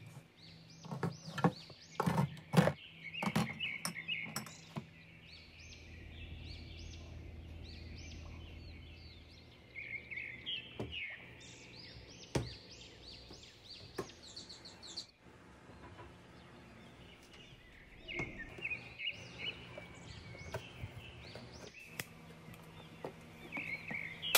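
Household items being handled and set down in a kitchen cabinet: a run of sharp clunks and knocks in the first few seconds, then scattered knocks. Birds chirp repeatedly in the background throughout.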